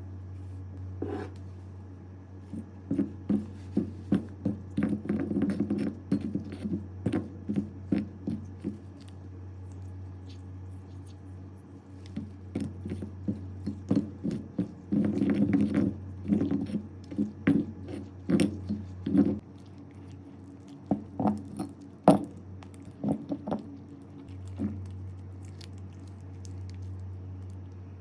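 Slime being squeezed and poked by hand, giving runs of quick wet clicks and small pops with short pauses between them, over a steady low hum.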